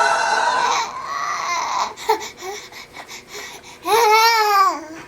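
A baby's high-pitched screeching "dinosaur noises": a long screech lasting about two seconds, a few small squeaks, then a second loud screech near the end that rises and falls in pitch.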